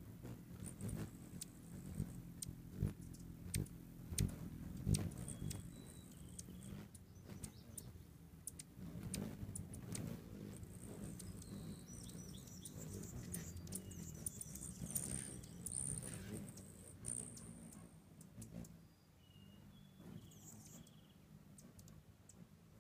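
Hummingbirds chasing around a feeder: a run of sharp chip notes and short, high squeaky calls over a low steady hum, thinning out near the end.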